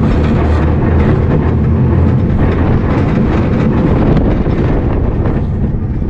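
ABC Rides tube coaster ride from aboard: the ring-shaped car running along its steel track, with a steady loud rolling rattle and wind on the microphone.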